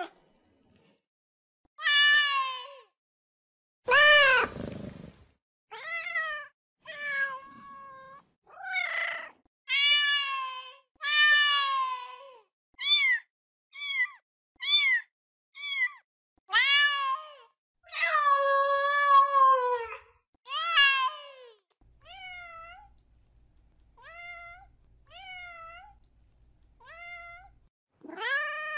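Domestic cats meowing, one separate meow after another, about twenty in all and varying in pitch and length. One long, falling meow comes a little past the middle. Near the end the meows are fainter and shorter, over a faint low hum.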